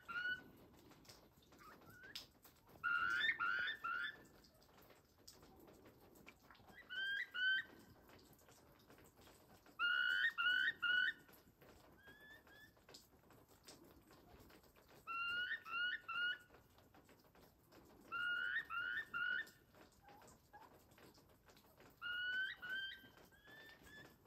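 Wild turkeys in a flock calling: short high notes in quick runs of two to four, the runs repeating every two to four seconds.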